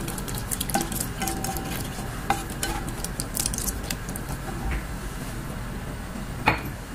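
Black slotted spatula stirring oats simmering in water, sugar and egg in a dark pan: repeated scrapes and light taps against the pan over a faint sizzle, with one sharper knock near the end.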